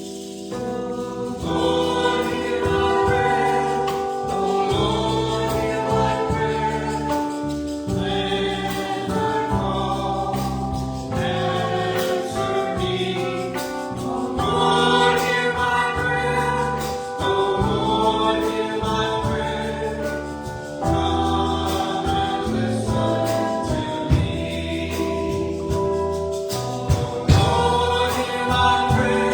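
Congregation or choir singing a hymn with keyboard accompaniment, in phrases of a few seconds each.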